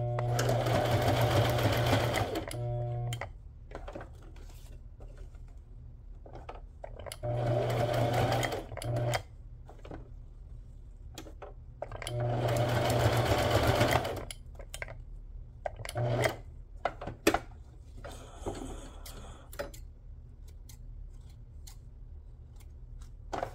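Brother electric sewing machine stitching in stop-start runs of about two seconds each, three main runs and a brief fourth. Small clicks and rustles of the work being handled fall between them.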